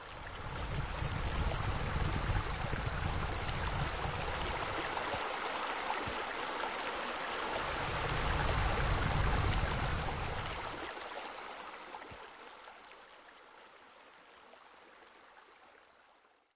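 Steady rush of running, splashing water with a low rumble that swells twice, then the whole sound fades out over the last few seconds.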